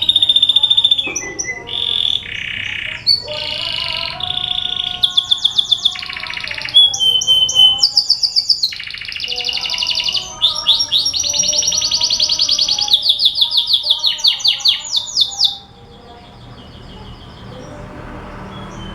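Domestic canary singing a loud, varied song of fast trills, rapidly repeated notes and whistled phrases. The song stops about fifteen seconds in, leaving a faint hiss.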